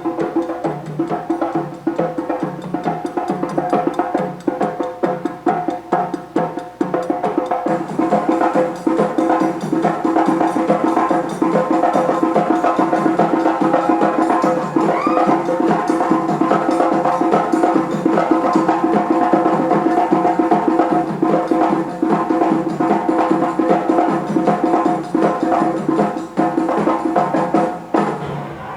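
Percussion-led music: fast, dense drum strokes over a steady held tone, growing fuller about eight seconds in and stopping suddenly just before the end.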